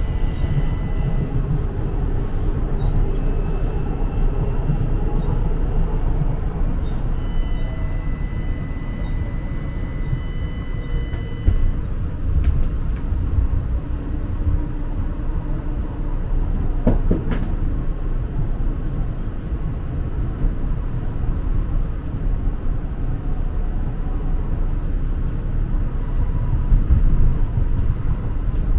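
MetroLink light-rail car running along the track, heard from inside the car as a steady low rumble. Thin high whines come and go, and there is a single sharp click a little past halfway.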